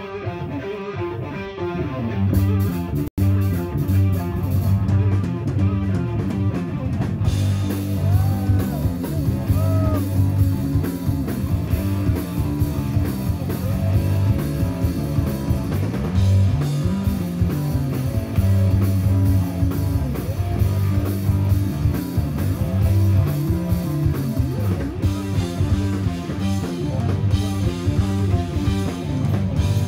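Live rock band playing: electric guitar over bass guitar and a drum kit. The full band comes in about two seconds in, and cymbals join at about seven seconds. There is a momentary dropout at about three seconds.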